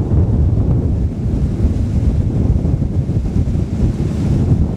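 Wind buffeting the microphone in a steady low rumble, over the running of a catamaran's twin outboard motors and the rush of its wake on the water.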